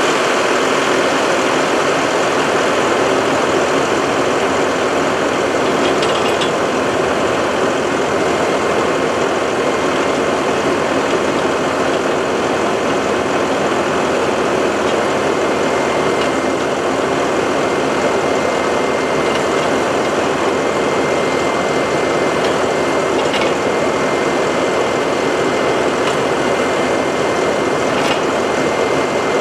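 Tractor engine running steadily as it drives a three-point-hitch post hole auger through the PTO, boring into the soil, with a faint steady high whine.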